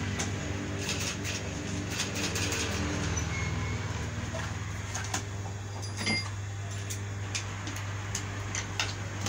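Industrial walking-foot sewing machine running steadily, stitching synthetic leather (skai), with a few light clicks along the way.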